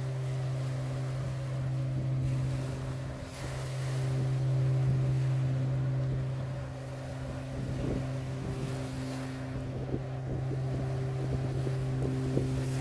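Steady low drone of a ship's engines, with wind on the microphone.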